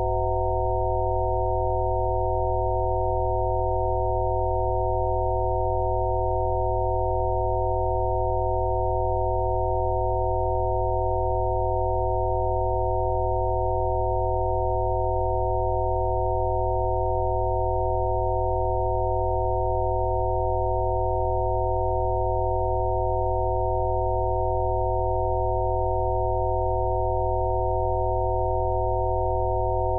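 Several electronically generated pure sine tones sounding at once and held without change, a steady mix of low and mid pitches. They are Rife frequencies played as sound therapy.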